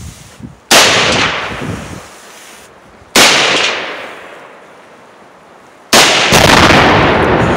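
Three gunshots about two and a half seconds apart, each echoing off the surrounding woods. After the third shot, a second, heavier bang follows about half a second later and rolls on in a long rumble: the 37-pound Tannerite charge detonating.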